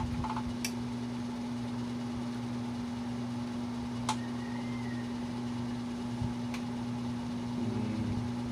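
Steady low electrical hum, with a few light clicks as multimeter test probes touch the amplifier's circuit board.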